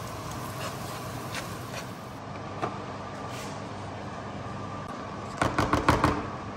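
A metal spoon knocking and scraping against a plastic tub several times in quick succession near the end, as a crumbly lentil-and-bulgur mixture is spooned in. Under it runs a steady kitchen background hum.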